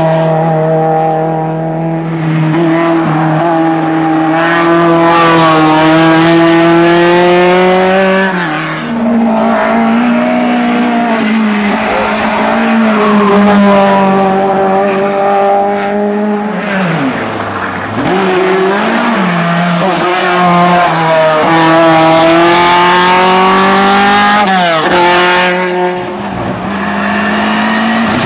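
Hill-climb race car engines at high revs, the pitch climbing steadily through each gear and falling sharply a few times as the drivers lift off or shift down, with some tyre squeal.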